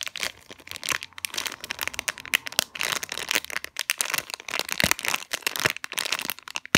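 Dense, rapid crackling from a cracking squishy, a soft foam toy built to crackle when bent, being flexed between the fingers inside its plastic bag, mixed with the bag's crinkling. There is a sharp louder click at the very end.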